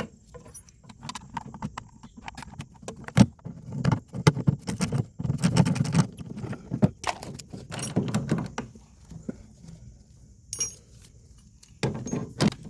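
Irregular clicks, knocks and rattles of hard parts being handled and fitted together as a leaking RV waste-tank drain valve is rebuilt with a new front piece and seals, busiest from about three to eight seconds in.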